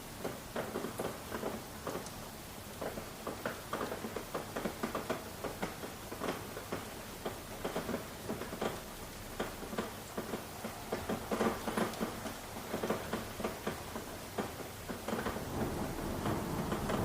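Rain falling, with dense, irregular drops tapping over a steady hiss. A low rumble swells near the end.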